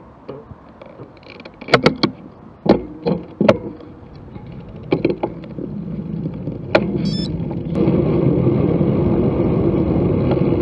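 Scattered sharp clicks and knocks from a stopped bicycle being handled. About eight seconds in they give way to a steady rush of wind and tyre noise as the bike is ridden along a paved path.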